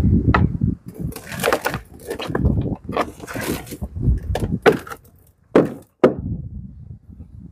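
Irregular knocks and scraping from a plastic flowerpot being tapped and worked upside down to free the plant's root ball for repotting, with soil rattling loose.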